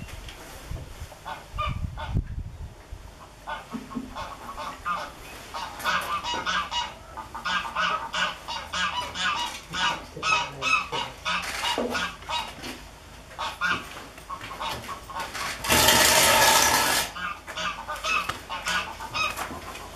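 Geese honking and calling over and over in short bursts, with one louder, harsher burst lasting about a second near the end.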